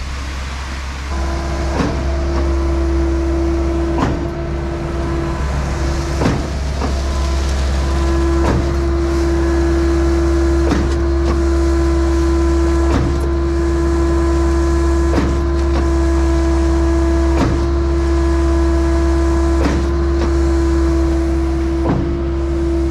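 Skid-steer-powered Mud Demon concrete line pump running under a low, steady engine rumble, with a steady whine coming in about a second in and a sharp knock about every two seconds as the pump strokes change over.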